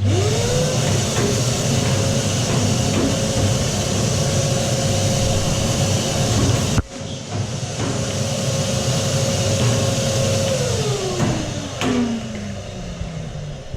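Vacuum cleaner switched on and sucking out fluff and debris from inside a tumble dryer: its motor whine rises quickly to a steady pitch over a loud rush of air, with a few knocks, then it is switched off and the whine falls away near the end.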